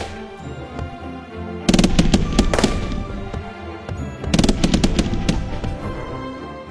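Two rapid volleys of fireworks bursts, the first about two seconds in and the second about four and a half seconds in, over loud show music with sustained tones.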